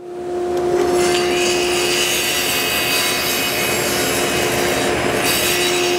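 Table saw running steadily with a constant motor hum while its blade cuts through the panel sled's wooden fence.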